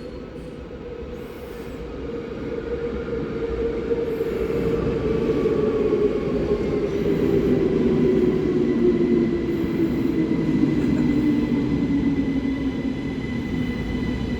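Electric train pulling into the station. Its rumble grows louder over the first half, and its motor whine slides slowly down in pitch as it brakes. A thin high squeal joins about halfway through.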